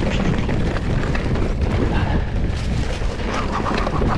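Mountain bike rolling down a rocky dirt trail, heard on the rider's action camera: continuous low wind buffeting and rumble on the microphone, with the rattle and clatter of the bike and tyres over stones and roots.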